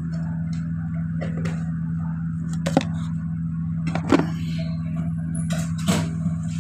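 A steady low hum runs throughout, with a few sharp clicks and knocks about three, four and six seconds in.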